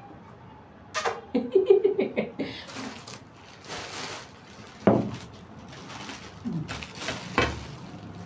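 Plastic packaging crinkling and rustling as a stand mixer's clear plastic splash guard is unwrapped and handled, with a few sharp knocks of hard plastic, the loudest about five seconds in.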